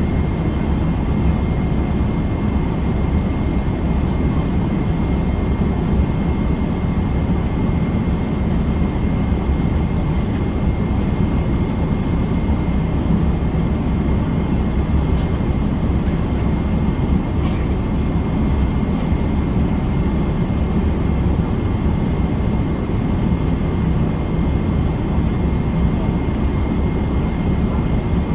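Steady cabin noise inside a Boeing 777-300ER in flight: a constant low rumble of engines and airflow with a faint steady high whine, and a few faint clicks.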